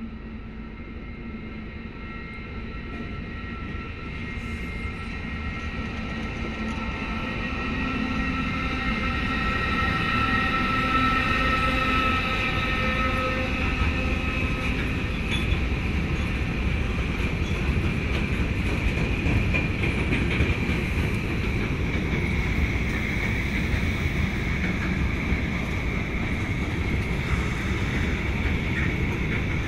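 Freight train of Uacns bulk silo wagons hauled by MEG locomotive 159 226 rolling past, growing louder over the first ten seconds and then steady. Thin high tones sound through the first half and slowly fade.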